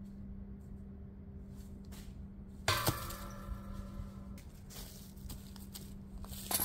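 A disc golf putter hits the metal basket about three seconds in, and the basket rings briefly and dies away; the putt does not stay in for the birdie. More metallic clinking follows near the end.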